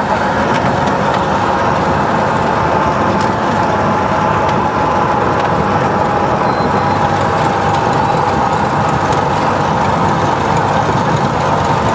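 Single-engine Cessna's piston engine and propeller running at low power during the landing rollout, a loud steady drone heard from inside the cockpit.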